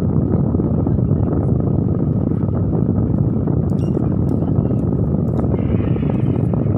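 Steady, loud, low-pitched noise with no clear pitch or rhythm. In the second half come a few faint clicks from a metal spoon scraping avocado flesh out of its skin.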